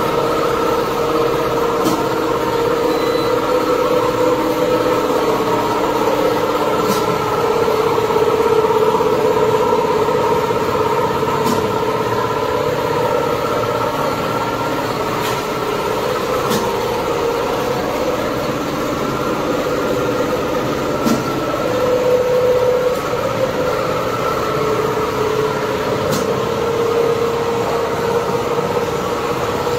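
A Richpeace CNC pattern sewing machine running steadily as it stitches a quilted pattern into a leather seat-cover panel held in a template frame. It is a continuous mechanical hum with a few faint clicks scattered through it.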